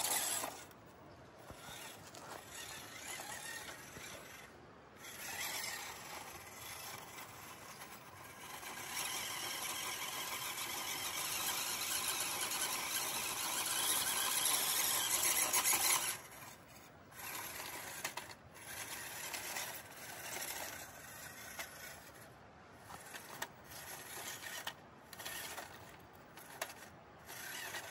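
The brushed electric motor and gearbox of a WPL C24 1/16-scale RC crawler whine as it drives, the throttle coming on and off in bursts. One longer, louder stretch of about seven seconds comes in the middle, followed by short bursts with brief pauses between them.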